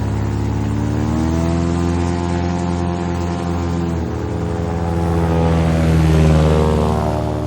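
Large airboat's 1947 AVCO Lycoming six-cylinder aircraft engine and propeller running. The pitch rises about a second in, drops back about four seconds in, then climbs again to its loudest point and falls away near the end.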